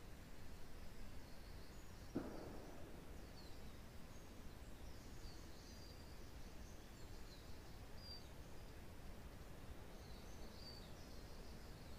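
Quiet pine-forest ambience: a steady low wind rumble with forest birds chirping faintly and on and off. A single brief dull thump about two seconds in.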